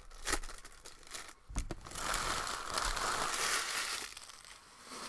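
Foil wrapper of a Bowman Draft baseball card pack crinkling as it is torn open, then crumpled for about two seconds, with a light thump shortly before.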